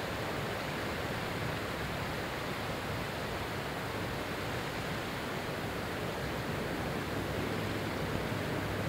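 Steady rushing noise of wind and water, with a faint low steady hum underneath.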